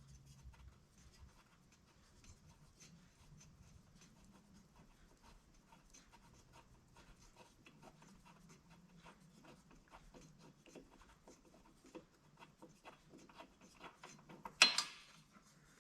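Faint, irregular ticking and scraping of hand tools at work on the mower engine, with one sharp clank near the end.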